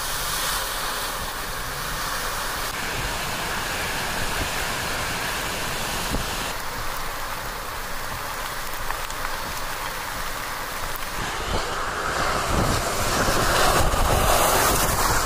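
Steady rushing noise of heavy rain and vehicles driving through floodwater on a flooded road, tyres throwing up spray; a semi-truck on wet pavement near the end, where it grows louder.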